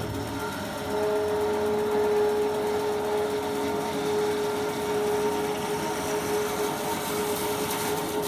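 A small motor running with a steady whine, a held tone with fainter overtones, that comes in about a second in.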